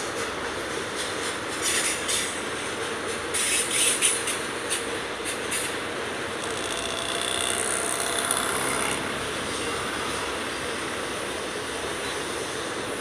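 Loaded freight hopper wagons rolling past on the rails: a steady rolling noise of steel wheels, with runs of sharp clicks about two and four seconds in and a faint high wheel squeal around seven to nine seconds in.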